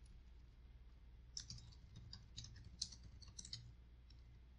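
Faint computer keyboard typing: a quick run of key clicks from about a second and a half in until past three and a half seconds, over a low steady hum.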